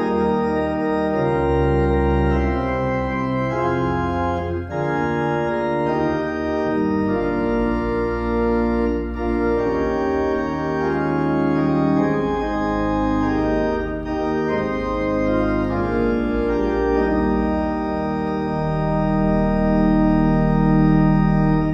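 Church organ playing slow music in sustained full chords over a low pedal bass, the chords changing every second or two. A final chord is held loud and then released near the end.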